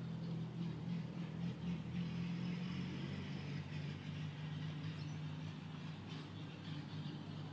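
A vehicle engine idling: a steady low hum that holds through without change.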